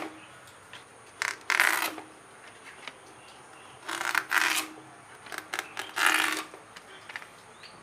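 Ash gourd being sliced against an upright curved cutting blade: several short scraping cuts through the firm flesh, with pauses between them.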